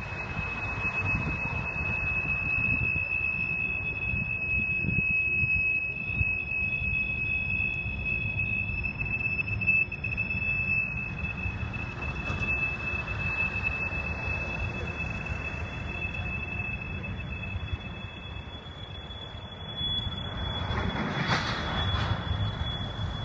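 Freight train tank cars rolling past with a steady high-pitched wheel squeal over the low rumble of the wheels on the rails. A second, higher squeal joins about halfway through and the first one stops a little later; a brief louder rush of noise comes near the end.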